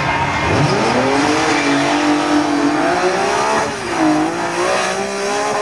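Two drag-racing cars launching off the start line together, engines revving up hard about half a second in and pulling away at full throttle. The pitch drops sharply at a gear change about three and a half seconds in, then climbs again.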